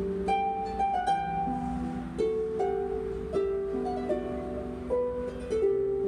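Concert harp played solo: a melody of plucked notes, each ringing on into the next, over lower notes that are held underneath.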